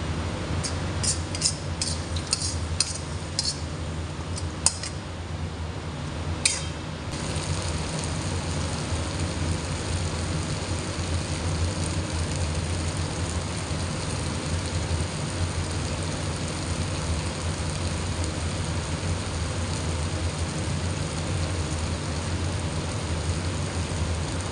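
A metal spatula clinks sharply against steel cooking pans about eight times in the first five seconds, then scrapes once near the seven-second mark, over a steady low hum and hiss.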